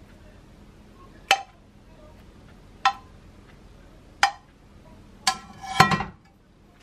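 Metal tongs clinking against a ceramic plate as slices of cooked beef are set down: four sharp clinks about a second and a half apart, then a louder clatter near the end.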